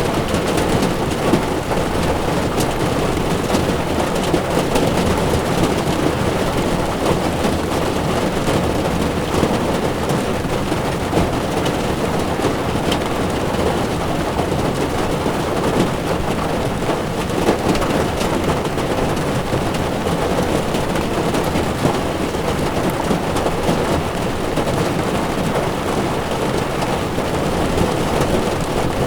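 Heavy rain drumming steadily on a car's windshield and roof, with the hiss of tyres rolling over a wet road, as heard from inside the moving car; scattered drops tick against the glass.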